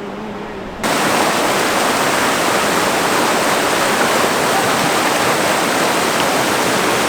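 Rushing water in a river canyon, a loud, steady hiss of falling or fast-flowing water that cuts in suddenly about a second in.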